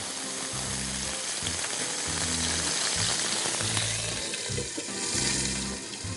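Chicken and vegetable skewers sizzling in hot oil in a frying pan, a steady frying hiss, with background music's low repeating bass notes underneath.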